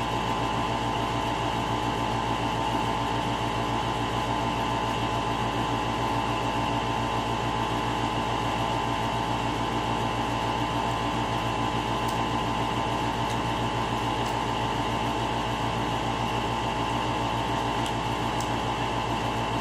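Steady machine hum with several held tones, unchanging in level, with a few faint ticks in the second half.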